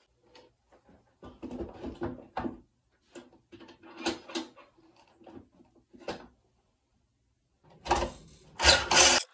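Plywood pieces and tools being handled on a plywood workbench deck: scattered light knocks and scrapes, then two short, loud bursts of noise near the end.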